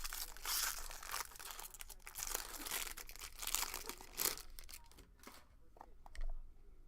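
Foil card-pack wrappers being torn open and crinkled by hand, a run of dense rustling that dies down after about four seconds into a few light clicks and handling sounds.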